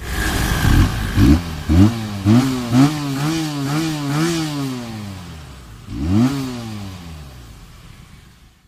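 Benelli 302R's 300 cc inline twin-cylinder four-stroke engine revved in neutral: five quick throttle blips in the first three seconds, then held at raised revs with the pitch wavering. The revs drop back, one more blip comes about six seconds in, and the engine falls back toward idle, fading near the end.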